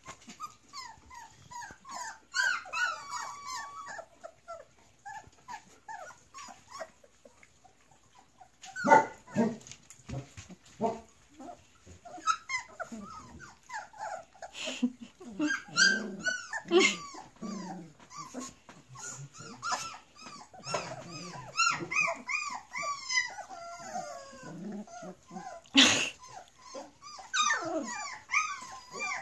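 A litter of very young Collie, Saint Bernard and Great Pyrenees cross puppies whining and yipping, many short high cries overlapping. The cries are sparse for the first several seconds and near-constant from about nine seconds in, with a sharp knock a few seconds before the end.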